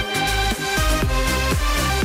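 Electronic dance music as a background track: a steady kick drum about twice a second under sustained synth chords.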